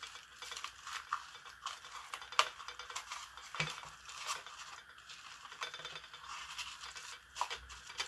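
Twine scraping and rustling against a flower pot as fingers tuck the loose end under the wraps, with a few small knocks and clicks as the pot is handled.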